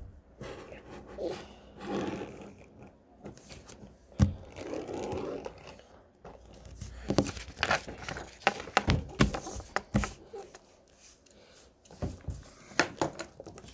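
Paper being handled and cut with scissors: rustling and crinkling, then a run of sharp snips in the second half.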